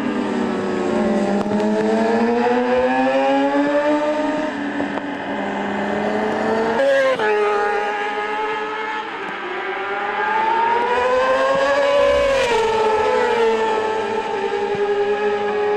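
Racing motorcycle engines running at high revs, their pitch climbing and dropping over several seconds, with a sudden break in pitch about seven seconds in.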